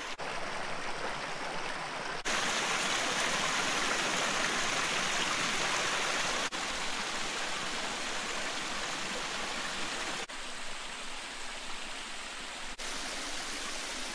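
Small waterfall and its stream splashing and cascading over rock ledges: a steady rush of water whose level changes abruptly several times.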